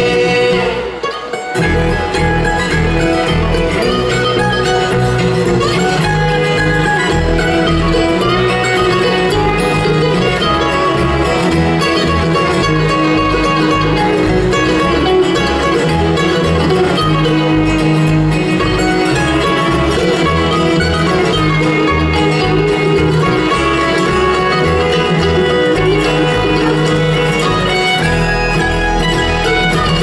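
Live country band playing an instrumental passage, with fiddle over guitar and a steady bass line, after a brief break in the sound about a second in.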